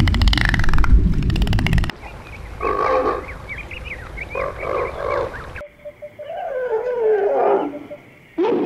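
A quick succession of animal sounds. First comes a rapid train of dolphin clicks over a low rumble, cutting off about two seconds in. Then come grey crowned cranes' honking calls with many short chirping notes. Then, after another sudden cut, comes an elephant's call that falls in pitch.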